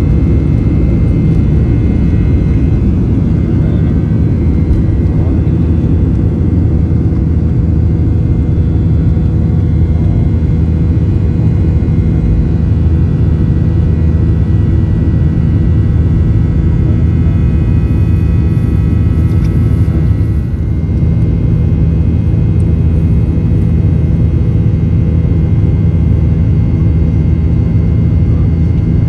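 Steady low rumble inside a Boeing 737-800's passenger cabin, with a few faint steady tones above it.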